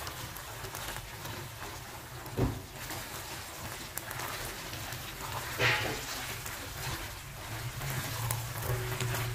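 Green chili sambal with anchovies and stink beans sizzling and bubbling in a nonstick frying pan while it is stirred with a silicone spatula. A dull knock comes about two and a half seconds in, and a louder short swish of the spatula through the sauce a little past the middle.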